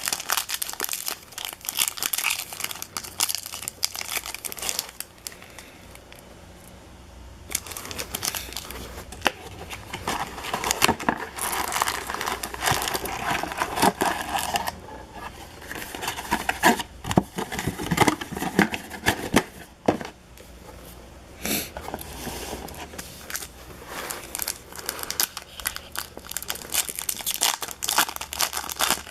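Foil baseball card pack wrappers being torn open and crinkled by hand, in irregular bursts with short quieter pauses.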